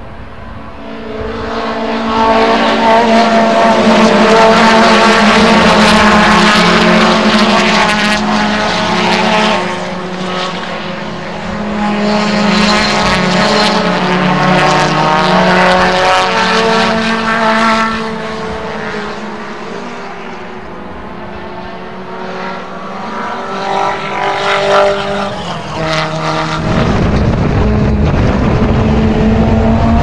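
Race car engine heard from inside the cockpit, running hard at high, fairly steady revs. It eases off twice, about a third of the way in and again past the middle, then comes back on. Near the end it pulls hard again with the pitch climbing as the car accelerates.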